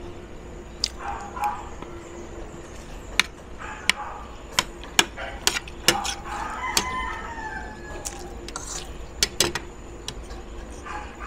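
Metal spoon and fork clinking and scraping against a ceramic plate during a meal, in a string of sharp clicks. A rooster crows once in the background about halfway through, a drawn-out call of about two seconds.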